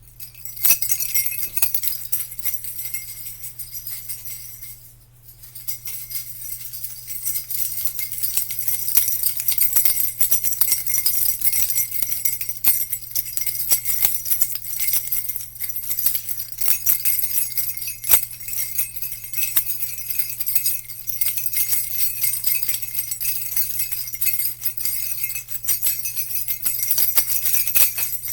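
Jingle bells shaken continuously in a dense, high jingling that starts about half a second in, dips briefly around four to five seconds, then keeps going, over a steady low hum.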